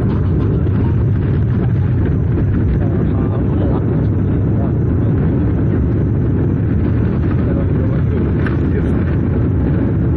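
Steady, loud cabin noise of a Sukhoi Superjet 100 airliner, heard from a window seat beside the wing: the deep, even roar of its PowerJet SaM146 turbofan engines and the rushing air.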